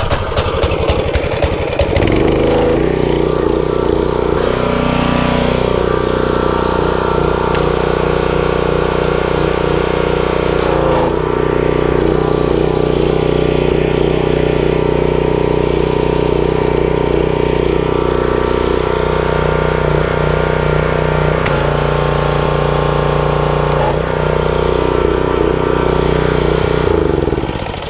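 Briggs & Stratton CR950 single-cylinder engine on a pressure washer pull-started, catching on the first pull within about two seconds, then running steadily. It sounds healthy, a sign that its oil is fine. The engine note drops away near the end.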